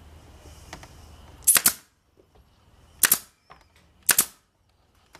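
Nail gun firing nails into wood, three sharp shots about a second apart, tacking glued pieces together.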